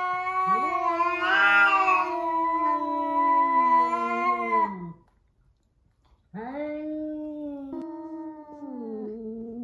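Domestic cats yowling in a standoff: one long, wavering yowl lasting about five seconds and sinking in pitch at its end, a short break, then another lower, drawn-out yowl.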